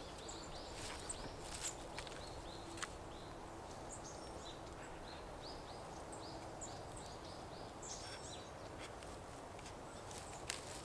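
Small birds chirping in runs of short high notes over a steady faint outdoor background, with a few soft clicks in the first few seconds.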